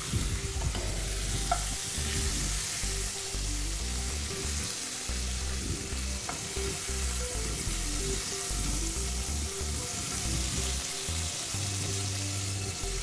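Veal slices and butter sizzling steadily in a frying pan as the cooked slices are lifted out with tongs, with a few light clicks of the utensils.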